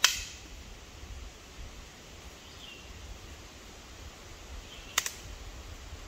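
Dry wood cracking sharply twice, once at the start and again about five seconds later, as firewood is broken up.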